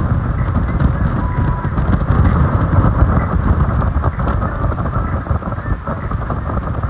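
Wind buffeting the microphone on a speedboat running at speed: a heavy, uneven rumble over the rush of water from the boat's wake.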